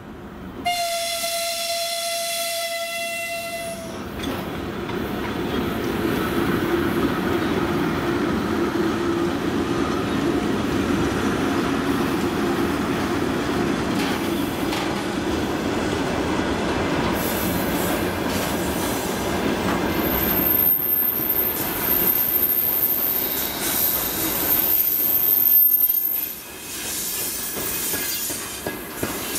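A 2ES4K electric locomotive's horn sounds one steady-pitched blast of about three seconds, then a freight train of hopper wagons rolls past with a steady rumble and clatter of wheels on rail. A thin, high wheel squeal joins in about two-thirds of the way through.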